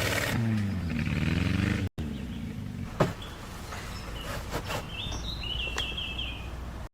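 An SUV's engine revving, its pitch rising and falling, cuts off about two seconds in. Then comes quiet outdoor background with a few sharp clicks, one louder knock, and short bird chirps near the end.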